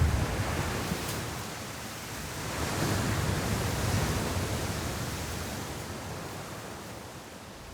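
Sea waves breaking and washing up the shore: a steady hiss that swells about three seconds in and slowly fades, with wind buffeting the microphone at the start.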